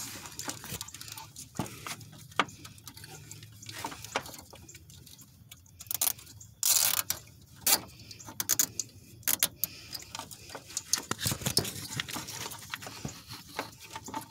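Plastic zip ties being pulled tight to fasten a transmission cooler: scattered small clicks and rattles, with one longer rasp about seven seconds in.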